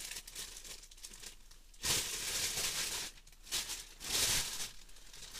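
Crinkly rustling of packaging or a bag being handled by hand, with two louder rustles about two seconds and four seconds in.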